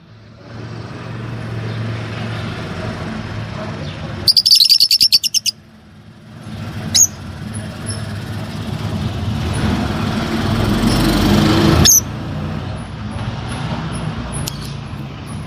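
Fischer's lovebird giving a rapid run of about ten loud, shrill chirps about four seconds in, then a few faint high peeps near the end. Under it is a steady background noise with a low hum, and there are two sharp clicks.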